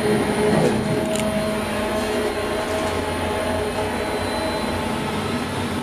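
Steady mechanical hum and rumble of a passenger lift car travelling between decks on a large ferry.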